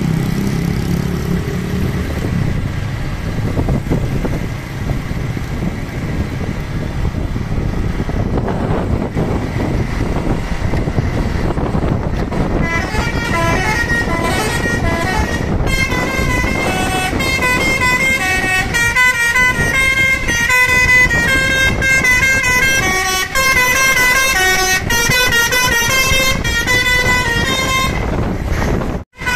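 Road traffic and engine noise, then from about twelve seconds in a bus's basuri telolet horn, a multi-trumpet musical air horn, playing quick melodic runs of many short notes that jump between pitches.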